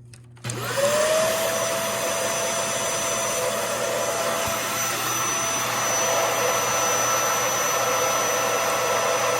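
Hoover Air Lift upright vacuum switched on about half a second in, its suction motor whining up to speed and then running steadily. The roller brush is not spinning, which the owner puts down to a loose connection or a bad roller brush motor.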